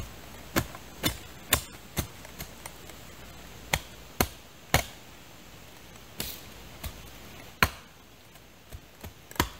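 A series of sharp knocks, a tool striking the ground: about a dozen single strikes, often in runs of three or four about half a second apart, with pauses between the runs.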